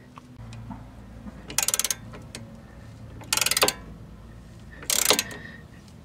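Socket ratchet wrench clicking in three quick runs, about a second and a half apart, as its handle swings back between strokes while running a nut onto a sway bar end link.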